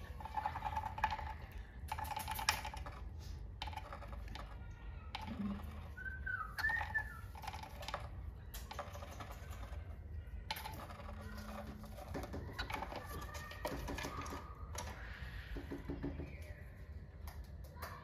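Cockatiels shuffling and pecking inside a wooden nest box: irregular clicks and scratches, with a few short chirps about six to seven seconds in.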